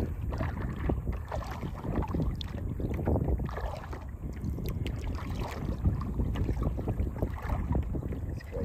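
Water splashing and lapping around a kayak out on the water, with wind rumbling on the microphone.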